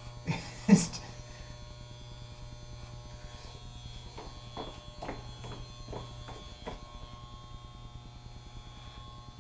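Electric hair clippers buzzing steadily against a nearly bald scalp. A sharp knock comes just under a second in, and several short sharp sounds follow between about four and seven seconds.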